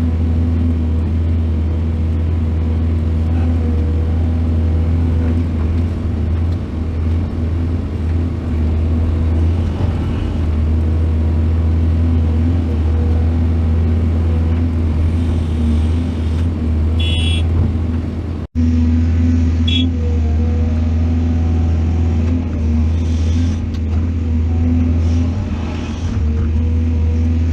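Heavy diesel engine of a large excavator running with a steady low rumble, with two brief high-pitched squeaks two-thirds of the way through and a sudden cut in the sound just after the first of them.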